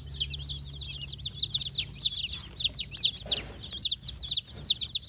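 A brooder full of baby chicks peeping without pause: a dense chorus of short, high calls, each falling in pitch, several every second.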